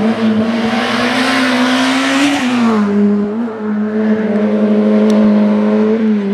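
Slalom race car's engine at high revs, rising to a loud pass with a rush of noise, then dropping in pitch about two and a half seconds in. It then holds a steady note at slightly lower revs.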